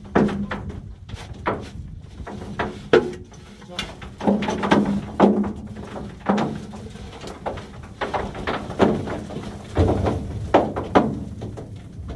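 Broken ore clattering down a steel loading chute into a mine car while a steel bar knocks and scrapes against the chute, in an irregular run of knocks and rattles.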